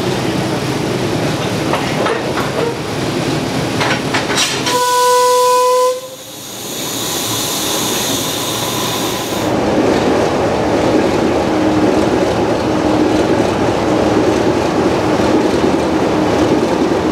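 Steam locomotive being readied: a steady rush of steam and machinery, cut by a single short whistle blast about five seconds in. A loud hiss of escaping steam follows for a few seconds, then the steady rush returns with a low hum under it.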